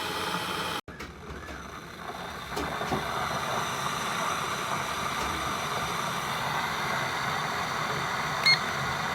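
Chefman glass electric kettle heating water with a steady rushing, seething noise, then a single short beep near the end.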